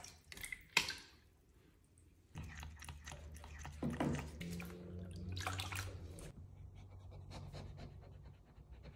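Light splashing of shallow bath water as a sphynx cat paddles, then a low steady hum with quick wet licking as the cat laps at a squeeze-tube treat.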